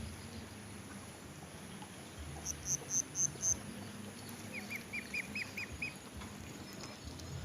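A bird calling: a quick run of five short, high, evenly spaced notes about two and a half seconds in, then a run of about seven lower, hooked chirps a little later.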